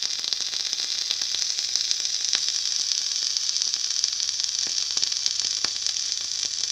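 Rebuildable vape atomizer coil firing: a steady sizzling hiss with scattered crackles and pops as the e-liquid boils off the old cotton wick, which still does not give a burnt hit.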